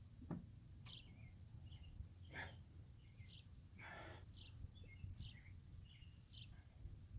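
Near silence: a faint steady low hum with a few faint bird chirps, a small click near the start, and two brief soft noises about two and a half and four seconds in.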